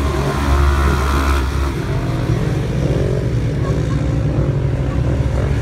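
Several racing side-by-side UTV engines running hard on a dirt track, their pitch rising and falling as they rev up and ease off through the turns.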